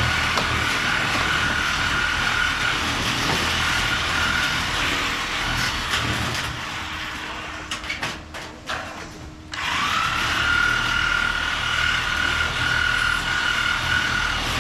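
A motor-driven machine running with a steady high whine over a low hum. It dips and goes quieter for a few seconds midway, then spins back up to full speed.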